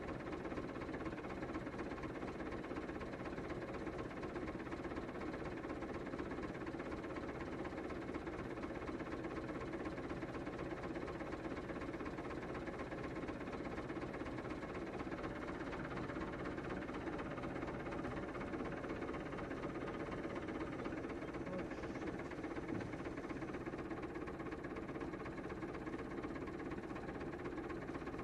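Massey Ferguson 265 tractor's three-cylinder Perkins diesel engine idling steadily.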